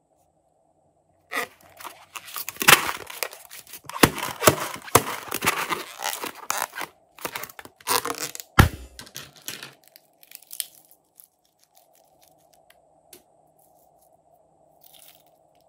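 Crunchy crackling and squishing as slime ingredients are handled in a plastic bowl. A sharp thump comes about eight and a half seconds in, and the sounds thin to a few faint ticks after about ten seconds.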